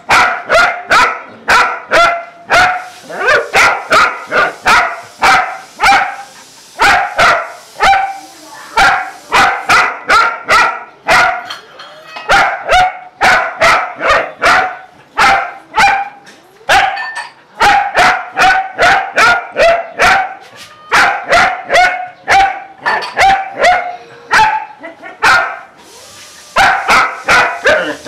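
German shepherd barking repeatedly at a cat, in quick runs of sharp barks about three a second with brief pauses between runs.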